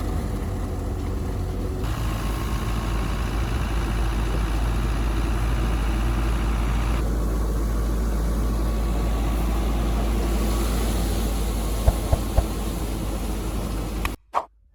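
An engine running steadily with a deep, even hum, its sound shifting slightly twice. A few sharp clicks near the end, then the sound cuts off suddenly.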